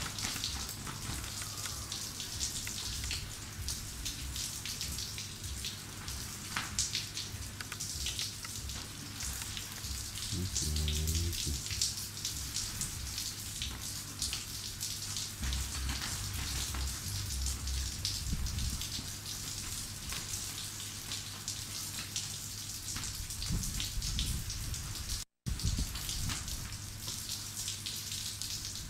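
Rain pattering steadily as many fine ticks over a low steady hum. A short low pitched sound comes through about ten seconds in, and the sound drops out for a moment near the end.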